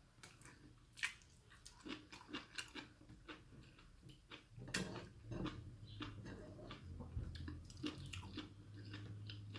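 A person chewing and eating close to the microphone: soft wet mouth sounds with scattered light clicks. A low steady hum comes in about seven seconds in.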